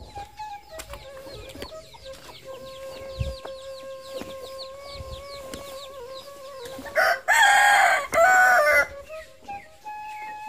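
A rooster crows loudly about seven seconds in, one long call in two parts. Before it, quick high chirps repeat over a steady tone.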